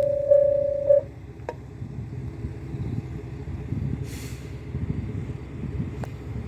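Railway level-crossing warning bell ringing its last couple of strikes, a little under two a second, then stopping about a second in. A low engine rumble follows, with a short hiss of air about four seconds in.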